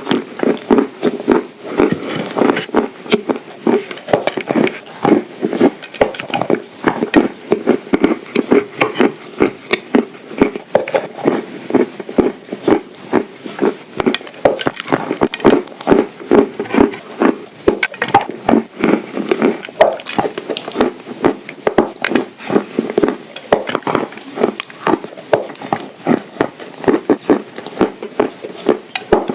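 Close-miked crunching and chewing of dry edible clay shaped as shortbread cookies: a dense, irregular run of crisp crunches, several a second.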